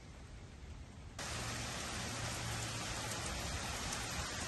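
Steady hiss of heavy rain, cutting in abruptly about a second in after a faint low rumble.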